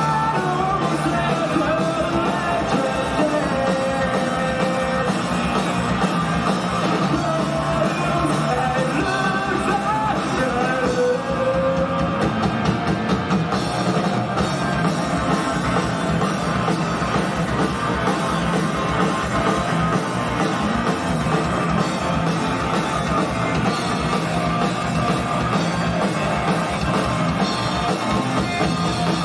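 Rock band playing live, with electric guitars, drum kit and a sung vocal line, heard from within the crowd.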